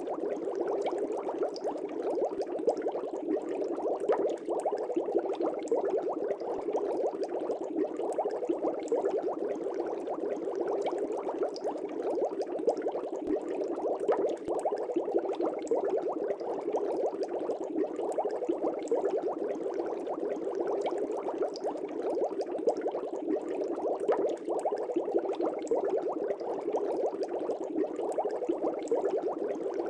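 Fish tank aerator bubbles rising and popping steadily in the water, a dense, continuous bubbling.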